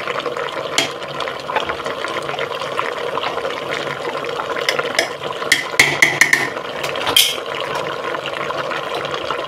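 Mutton, onions and spices sizzling steadily in hot oil in a pressure cooker. A few sharp metallic clicks and scrapes of a cooking utensil against the pot, clustered a little past the middle.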